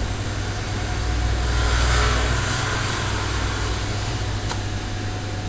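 Steady low mechanical hum with background noise that swells and fades between about one and three seconds in, and a faint click near the end.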